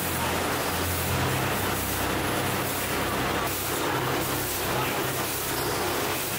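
Steady running noise of ice-cream factory production machinery, an even hiss with a low hum underneath.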